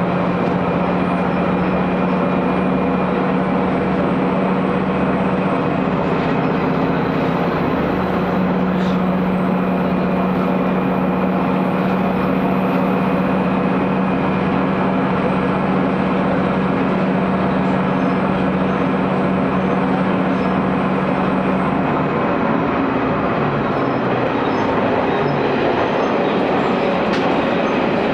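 Cabin sound of an AT500 diesel railcar under way: the diesel engine's steady drone over the wheels' running noise on the rails, with a regular low pulsing. About three-quarters of the way through, the engine's note drops away, leaving the rail running noise.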